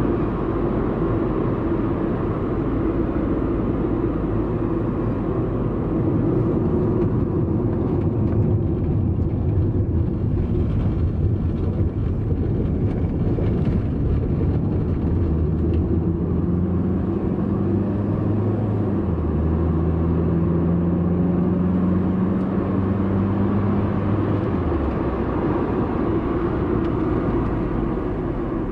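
Steady rumble of a moving road vehicle heard from inside its cabin: engine and tyre noise. About sixteen seconds in, a deeper engine drone comes in, rises slightly in pitch and holds, then drops away at about twenty-five seconds.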